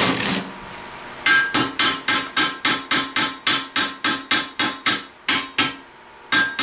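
Hammer striking metal: a quick, even run of taps, about five a second, for three and a half seconds, then three single strikes, each with a short ring.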